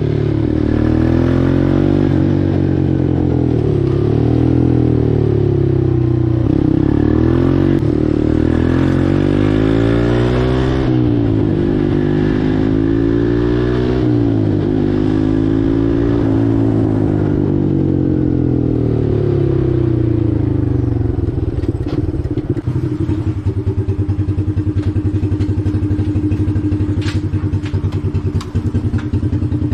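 Four-wheeler (ATV) engine running under way, its pitch rising and falling with the throttle, then dropping to a steady, pulsing idle about two-thirds of the way through.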